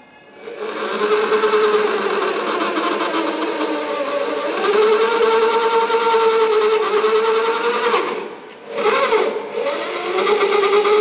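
Handheld drill running under load, drilling out a spot weld on a car's steel fender flange. It starts about half a second in, dips briefly about 8 seconds in, then picks up again with its pitch wavering.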